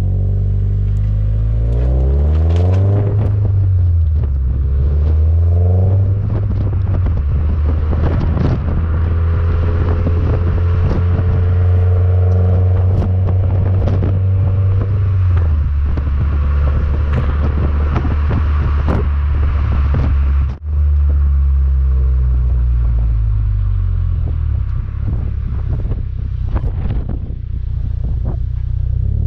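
Toyota GR86's 2.4-litre flat-four engine running through a Cobra aftermarket exhaust under way. The revs climb and drop with gear changes in the first few seconds, then hold steadier with scattered sharp pops. The sound cuts out for a moment about twenty seconds in, then the engine runs at lower revs.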